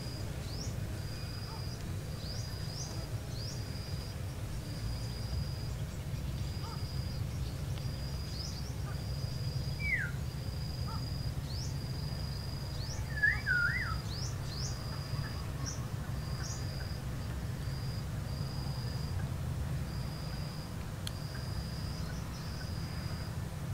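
Outdoor rural ambience: a short, high-pitched call repeating about once a second, with a few bird chirps near the middle, over a steady low rumble.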